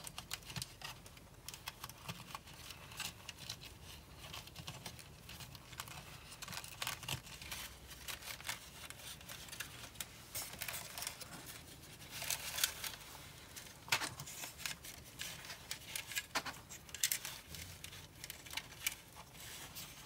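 Hands threading thin wires and fibre-optic strands through an opening in a plastic model deck panel: intermittent small clicks, scrapes and rustles of wire against plastic, busiest about twelve seconds in.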